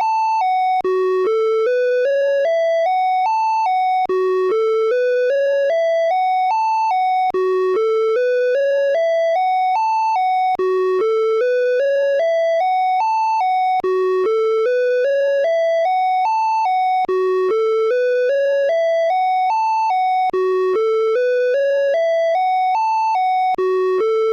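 Electronic emergency alert (EAS) alarm tone of the Åland Islands: a rising staircase of about eight short, clear beeps that climbs from low to high, then drops back and starts over about every three seconds, repeating without pause.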